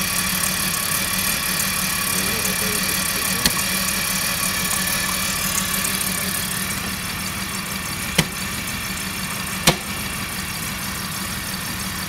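BMW M54B25 2.5-litre straight-six petrol engine idling steadily, an engine the seller says runs unevenly. A few sharp clicks stand out, one about a third of the way in and two more later.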